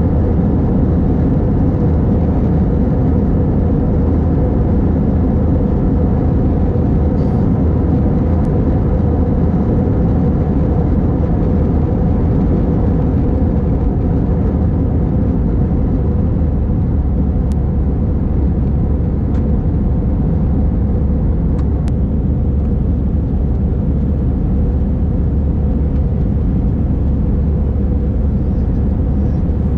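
Airbus A321 cabin noise during the climb after takeoff: the twin jet engines and rushing air running loud and steady, a deep even drone heard from inside the cabin.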